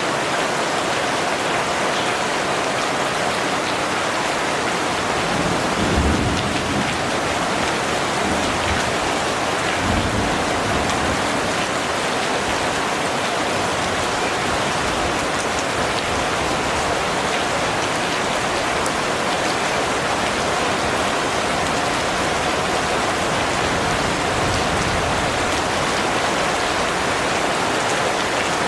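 Steady rain falling and pattering on surfaces, with two brief low rumbles about six and ten seconds in.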